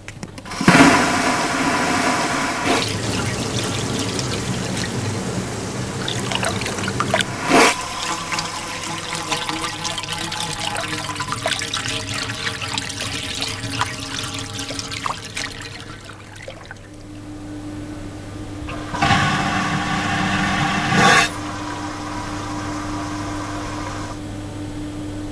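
Vacuum toilet flushing: a sudden loud suction rush about a second in, then a long rush of air and water with a sharp click partway through, easing off. A steady hum sets in about two-thirds of the way through, and a second loud suction rush near the end cuts off sharply.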